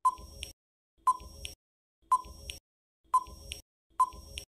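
Quiz countdown timer sound effect: five short electronic beeps, one a second, each followed by a softer click.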